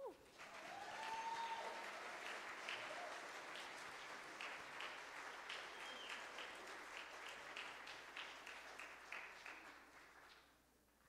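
The last chord of the music cuts off at the start, then the congregation applauds; the clapping builds quickly, holds for about ten seconds and dies away near the end.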